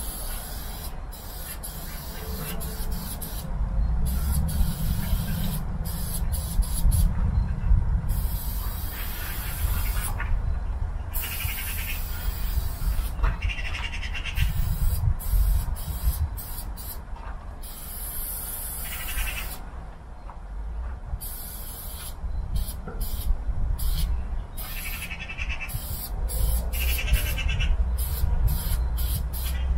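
Aerosol spray-paint can hissing in bursts, starting and stopping many times with short gaps between sprays, over an uneven low rumble.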